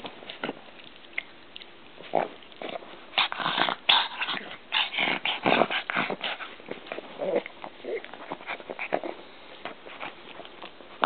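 A pug playing and squirming on a fleece blanket, making short, irregular munching and mouthing noises, busiest from about three to seven seconds in.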